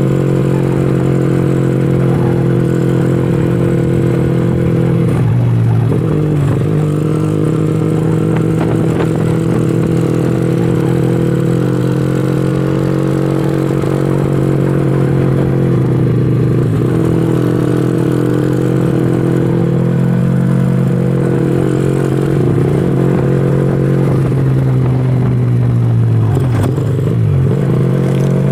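Honda Astrea Legenda 2's single-cylinder four-stroke engine, tuned for road racing with a 120 main jet and 42 pilot jet, running loud at high, fairly steady revs. The revs dip briefly and pick up again four times.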